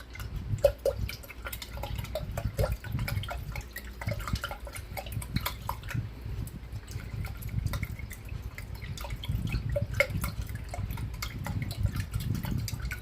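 Water and glycerin being stirred together in a container: liquid sloshing and dripping, with many irregular small clicks.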